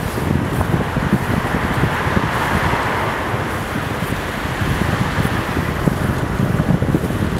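Wind buffeting the microphone with a gusty rumble, over a steady road hiss on wet tarmac that swells and fades around two to three seconds in as a car passes.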